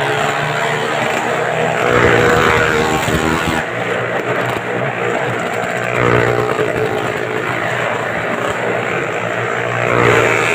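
Motorcycle engines running hard as riders circle the vertical wall of a wall-of-death drum, the engine note swelling and fading about every four seconds as they come round.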